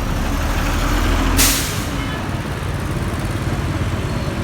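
City bus engine running with a low rumble at a stop, and a short, sharp hiss of air-brake release about a second and a half in.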